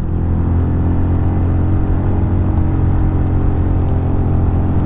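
Motorcycle engine, a Honda CB150 single-cylinder, running at a steady speed as the bike rides along, picked up by the rider's onboard microphone. The pitch holds level, with no revving up or down.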